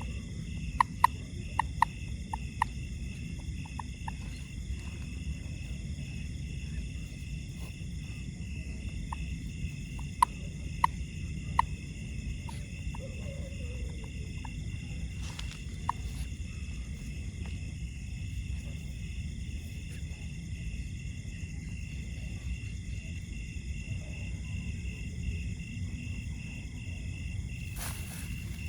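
A steady, high-pitched chorus of night insects droning over a low rumble. Runs of short sharp clicks come in the first few seconds and again about ten seconds in.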